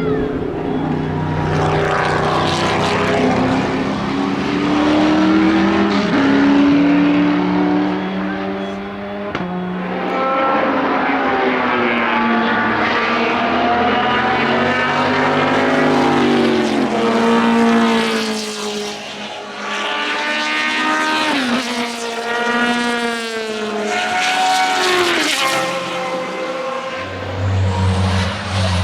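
Racing car engines at high revs accelerating along the track. The pitch climbs and falls back sharply at each gear change, several times over.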